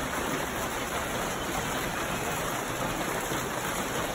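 Hail pelting down in an intense storm, a dense, steady hiss of countless impacts without a break.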